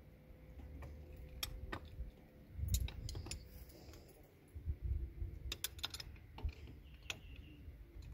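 Irregular metallic clicks and clinks of a jumper lead clamp and spanner being fitted onto a car battery's positive terminal, with low handling bumps.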